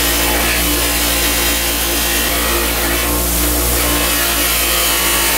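Bench grinder spinning a grey abrasive wheel with a steel screwdriver blade pressed against it: a steady motor hum under the hiss of the metal being ground, the hiss swelling and easing a couple of times as the pressure changes.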